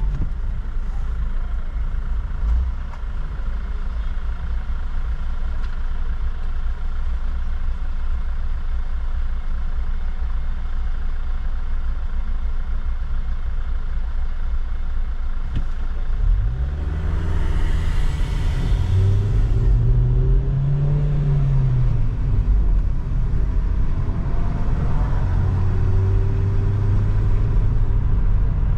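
Car engine idling with a steady low rumble, then about sixteen seconds in it revs up as the car pulls away, its pitch rising, dipping at a gear change and rising again, with tyre and road hiss coming in, before settling into a steady run.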